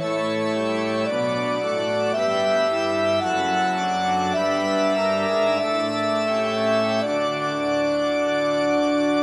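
Organ music: slow, sustained chords that change every second or so, then one long chord held near the end.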